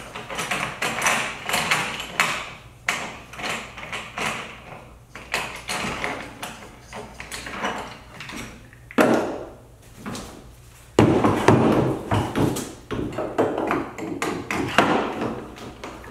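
Hard plastic parts knocking, clicking and scraping as a Power-Pole Micro Anchor is handled and fitted onto its plastic mount on a kayak's stern. The knocks come irregularly, with a louder run of scraping and knocking about eleven seconds in.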